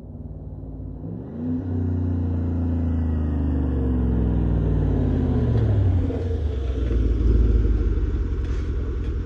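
Drive-by of a Chevy/GMC 1500 pickup's 5.3-litre V8 running through a Black Widow Neighbor Hater muffler, with the exhaust ending at the muffler. The engine note climbs about a second in, then falls, and grows loudest as the truck passes close by.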